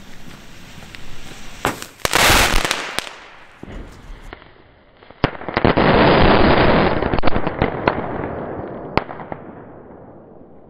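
Ground firework going off: a short loud rush about two seconds in, then a sudden, louder spray of sparks about five seconds in that lasts a few seconds, with small sharp pops through it, and fades away.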